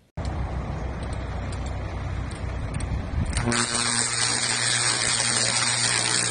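High-voltage overhead power line arcing, drawn out from a lineman's hot stick: a loud crackling hiss over a steady electrical hum, starting about three and a half seconds in. Before it, a low steady rumble.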